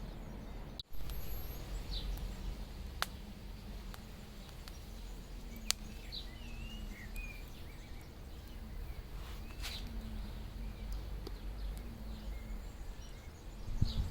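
Outdoor background of a steady low rumble, with a few faint bird chirps near the middle and several scattered sharp clicks.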